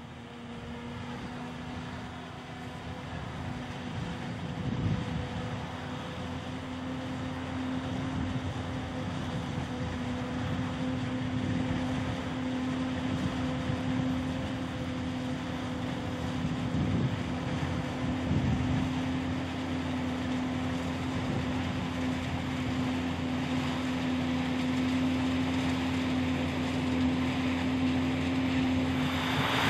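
Forage harvester chopping maize, with a tractor and trailer running alongside: a steady machine drone with a constant hum that grows gradually louder.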